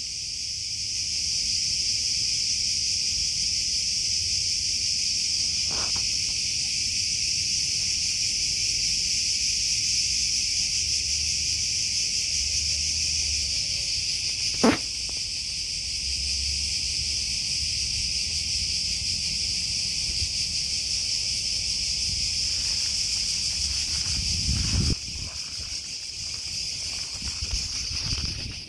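Steady, loud chorus of summer cicadas singing in the trees, with one sharp click about halfway through and a few low thuds near the end.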